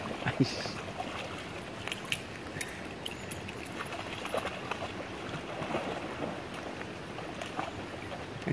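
A puppy splashing through shallow water, its paws slapping the surface in quick, irregular splashes. The biggest splashes come about half a second in.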